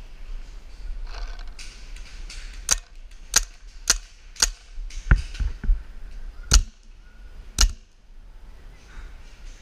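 Paintball marker firing eight single shots, sharp cracks about half a second to a second apart, with a longer gap before the last two.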